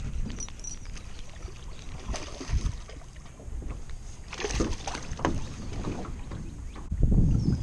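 Small jon boat rocking on the water, with water lapping at the hull and scattered light knocks. Wind buffets the microphone in a loud low gust near the end.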